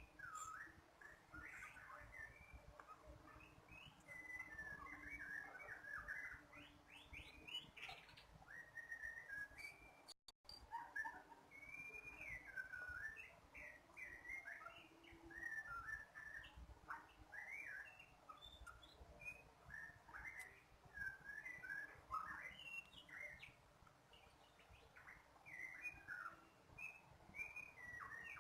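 Bar-winged prinia singing: a busy run of quick chirps and short whistled notes, with a brief cut-out about ten seconds in.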